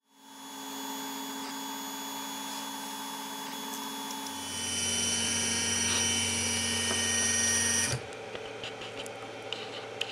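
3D printer running with its stepper motors whining in several steady tones; the whine changes and grows louder about four and a half seconds in, then cuts off suddenly about eight seconds in, leaving a low hiss with a few light clicks.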